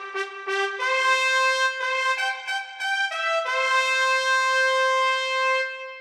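A short solo brass melody: a few quick notes, then one long held note that fades out near the end.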